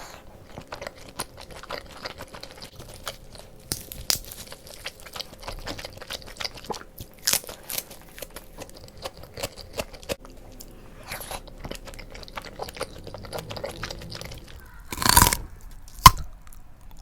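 Close-miked chewing of momo dumplings: irregular wet mouth clicks and smacks. Near the end comes a louder burst of noise, then a single sharp knock.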